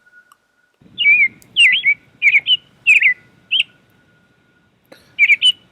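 Recorded birdsong played as a sound effect: a run of quick, high chirping notes about a second in, a pause, then a second run near the end.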